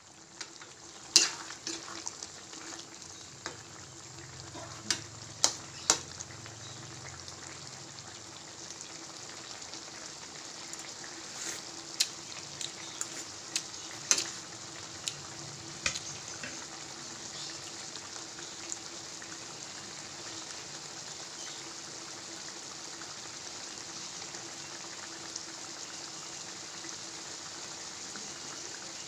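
Eggplant bubbling in a milky sauce in a wide metal pan, with a steady sizzling hiss. A spoon knocks against the pan in sharp clicks a few times in the first half.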